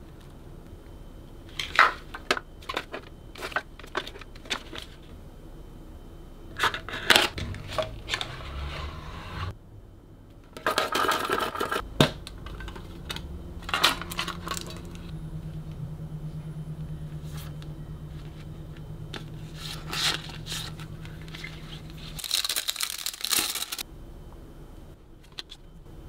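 Packaging being unwrapped and handled: plastic or paper crinkling and tearing in bursts, with sharp taps and clicks as items are picked up and set down.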